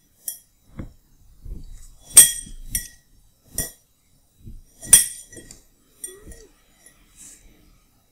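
Clinks of a metal nail and a plastic propeller knocking on the rims of drinking glasses as the propeller is set on a home-made balancer: two sharp, ringing clinks about two and five seconds in, with lighter taps and handling noises between.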